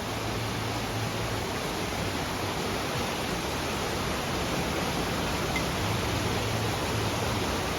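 Steady rushing of fast-flowing creek water fed by snowmelt, an even unbroken wash of noise.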